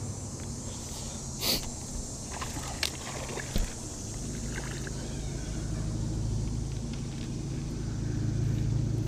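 Steady low hum of a small electric motor on a bass boat, broken by a few sharp clicks and knocks in the first four seconds.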